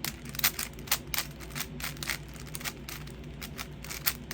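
A plastic 5x5 Rubik's cube being turned by hand, its layers clicking and clacking in quick, uneven turns.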